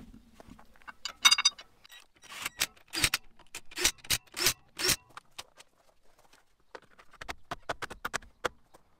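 Wheel being refitted: a metallic clink about a second in, then a Ryobi cordless impact wrench running the wheel nuts on in several short bursts, then a string of light clicks as a plastic hubcap is snapped into place near the end.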